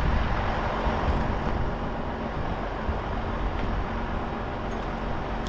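A Volkswagen Polo 1.4 heard from inside the cabin: a steady low engine rumble under an even wash of road noise.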